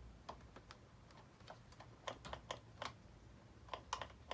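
Light, irregular clicks, a dozen or so, of buttons being pressed on a camper refrigerator's control panel while switching its power mode.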